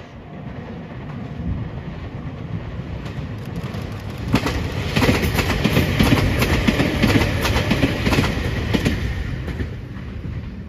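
Meitetsu silver electric commuter train approaching and passing close by, its wheels clacking in a quick rhythm over the rail joints, loudest as the cars go by, then fading away.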